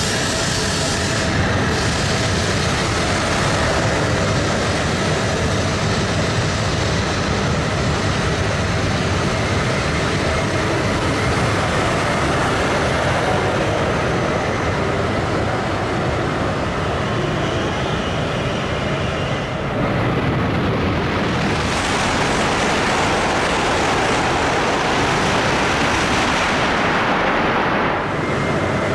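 E956 ALFA-X Shinkansen test train running past at close range: a steady rumble and rush of wheels and air with a whine of several electric tones. About twenty seconds in the sound breaks off briefly, and a rush of train noise swells and then fades.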